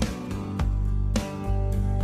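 Instrumental background music with a steady beat, a new note or chord struck just under twice a second over a held low bass.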